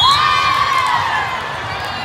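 Young voices shouting and cheering as a crowd, led by one loud high-pitched shout that starts suddenly, is held for about a second and then falls away.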